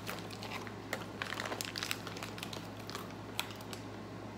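Plastic snack wrapper crinkling as it is handled: a dense run of crackles over the first couple of seconds, then a few scattered ones.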